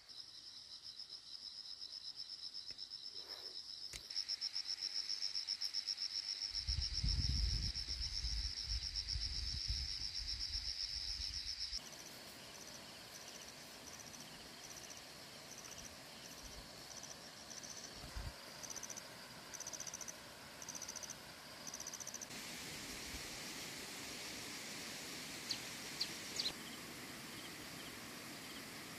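Insects chirring in a steady, fast-pulsing high drone, with a low rumble for several seconds in the middle. After a sudden change about twelve seconds in, an insect chirps in short repeated bursts, and three quick high chirps sound near the end.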